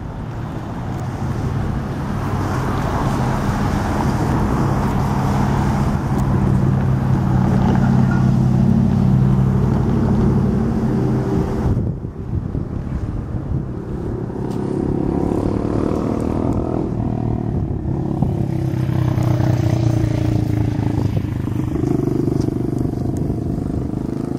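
A vehicle engine running steadily, with low, even engine tones throughout. The sound dips briefly about halfway through and then carries on.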